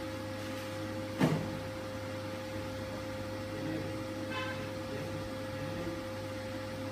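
Steady machine hum from an idle Kongsberg digital cutting table, with a single sharp knock about a second in and a brief faint high-pitched sound a little past the middle.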